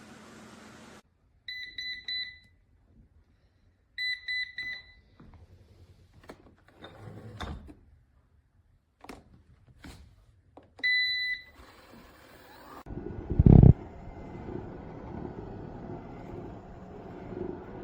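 eufy RoboVac 11S Max robot vacuum beeping: three bursts of short, high single-pitch electronic beeps, with clicks and knocks between them. About two thirds of the way in a steady running noise starts, with one loud thump just after.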